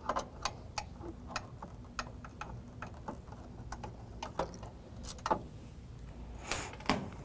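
A 5/16 nut driver backing out the sheet-metal screws that hold a fan assembly in place: a string of irregular light metallic clicks and ticks, with a few louder ones near the end.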